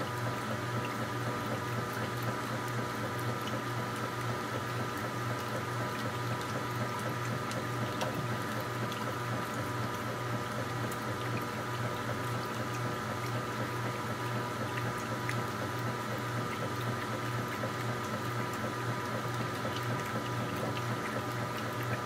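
KitchenAid top-loading washing machine in its wash agitation: water churning and sloshing steadily around the agitator with the load of clothes. A steady electrical hum from the frequency converter powering the machine runs underneath.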